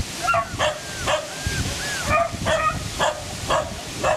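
Beagle puppy yipping and barking repeatedly in high, sharp yelps, about two a second.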